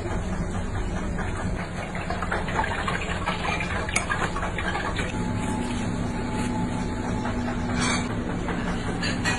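Hot oil sizzling steadily as a large round of dough deep-fries, with a low steady hum joining about five seconds in.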